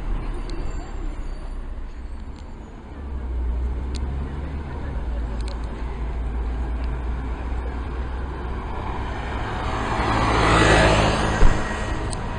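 Street traffic with a city bus's diesel engine running low and steady; the rumble grows about three seconds in. Near the end a rush of road noise swells and fades, followed by a single sharp knock.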